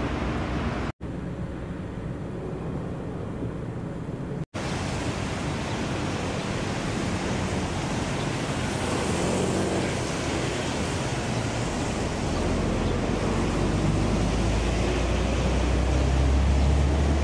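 Steady outdoor harbour ambience, a wash of noise with a low rumble building over the last few seconds. The sound drops out completely twice, very briefly, about one and four and a half seconds in.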